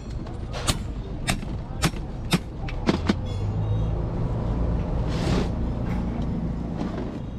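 Sharp knocks about every half second for the first three seconds, then a low mechanical rumble with a steady hum, like a running motor, that swells and then fades near the end.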